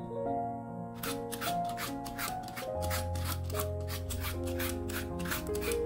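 Y-peeler blade scraping the hard skin off a kabocha squash in quick, repeated strokes, about four a second, starting about a second in. Background music plays throughout.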